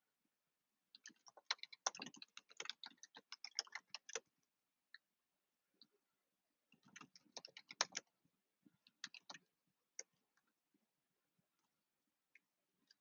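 Computer keyboard typing, faint: a run of rapid keystrokes from about a second in to about four seconds, a second run around seven seconds, then a few single keystrokes.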